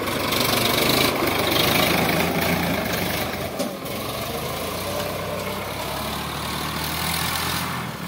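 Sonalika DI 745 tractor's diesel engine running steadily.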